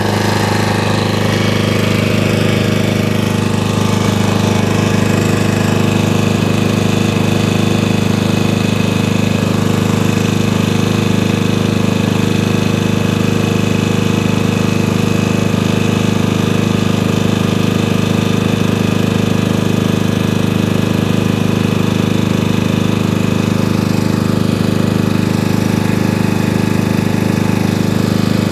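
Antique gasoline generator's small engine running steadily.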